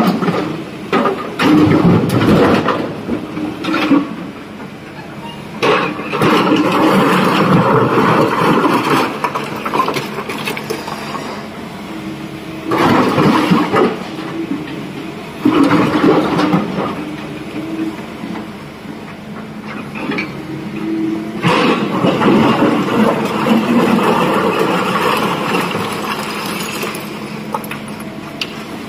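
Sany excavator at work on blasted rock: its diesel engine runs steadily under load while the bucket grinds into the rock pile and dumps rock into a steel dump-truck body with loud clattering crashes, several times over.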